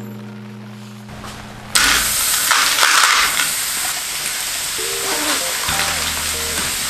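Smelt sizzling in hot oil in a frying pan. The sizzle starts suddenly about a second and a half in, as the fish go into the oil, and carries on steadily and loudly.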